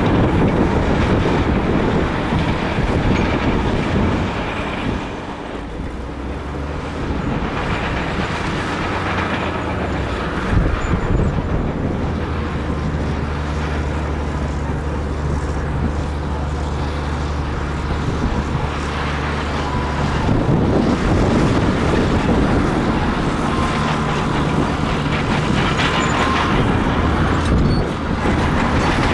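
Large crawler bulldozer's diesel engine working with the clatter of its tracks and blade. It is loud and rough at the start, eases off a little for a stretch in the middle with a steady engine drone, and works harder and louder again from about twenty seconds in.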